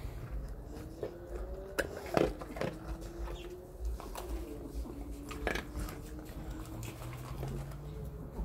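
Dogs taking treats from a hand, with sharp clicks of snapping jaws and chewing, the loudest a little after two seconds and again at five and a half. Under them runs a long, low, wavering whine that fades out about seven seconds in.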